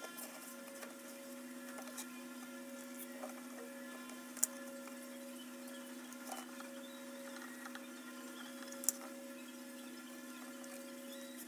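Steady electrical hum under the light handling of a cardboard box, with a few sharp clicks and taps as hands press and slide on the cardboard, two of them louder, about four and nine seconds in.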